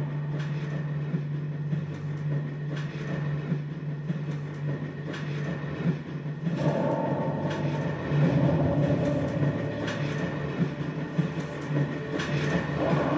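Performance soundtrack of a steady low mechanical drone with irregular sharp clicks, train-like in character, growing louder and fuller about halfway through.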